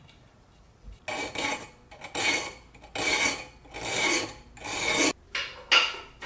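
Hand filing the end gap of a piston compression ring: the ring's end is drawn across a file clamped in a vise in about seven rasping strokes, roughly one a second, the last two shorter and quicker. The filing widens the ring's end gap to the wanted clearance.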